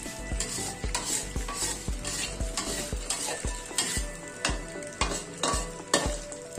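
A spatula stirring and scraping in a pan of food frying in hot oil, with strokes about twice a second over a steady sizzle.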